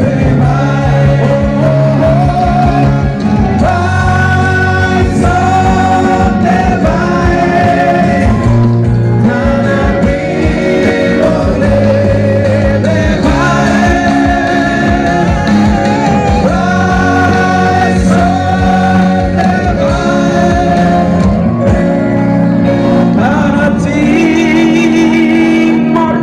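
Several voices singing a song together through microphones and a PA, with long held notes, over a live keyboard accompaniment.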